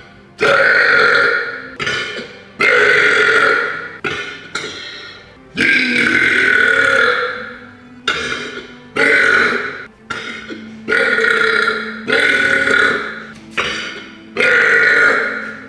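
A person belching loudly and repeatedly: about a dozen long, deliberate burps in quick succession, each starting suddenly and fading over about a second.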